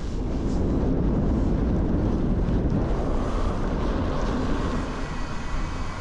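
Wind buffeting the microphone of a camera carried on a moving bicycle: a steady, rumbling rush.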